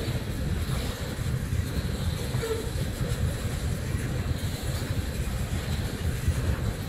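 Tank cars of a freight train rolling past, a steady rumble of steel wheels on the rails.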